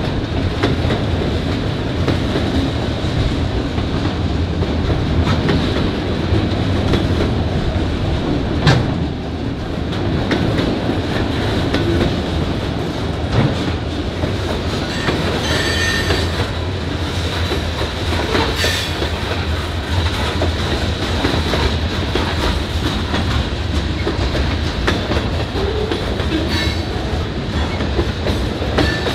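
A long freight train of autorack cars rolling past at close range: a steady heavy rumble with the wheels clattering over the rail joints. There is one sharp bang a little under nine seconds in, and brief high wheel squeals about halfway through.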